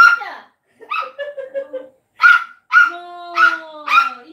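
A dog barking in short, high yips, with a long howl that slowly falls in pitch running under the barks in the last second or so.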